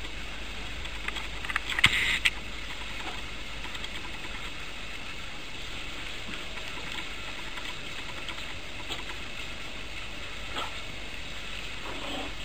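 Puppies scuffling and playing on a tile floor: scattered light clicks and scuffs over a steady hiss, with a brief sharp, noisy scrabble about two seconds in.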